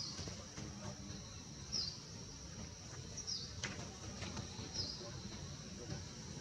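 A short, high bird chirp repeats about every one and a half seconds, four times, over a steady high-pitched insect drone.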